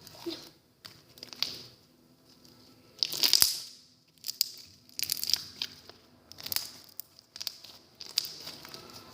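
Homemade slime being stretched and pressed by hand, a series of short sticky bursts of sound, the loudest and longest about three seconds in.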